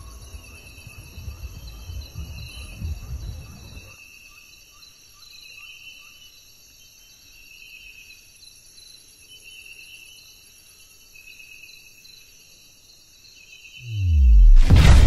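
Insects chirping in a steady, pulsing chorus, with a low rumble underneath for the first four seconds. Near the end, a loud whoosh with falling tones swells into a heavy low impact: the sound effect of the title animation.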